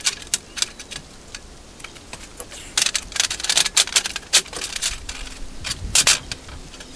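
Used steel horseshoes clinking and clattering against each other and the steel welding table as they are picked up, shifted and laid down by hand. The clinks come in quick clusters, with a sparser stretch between about one and three seconds in.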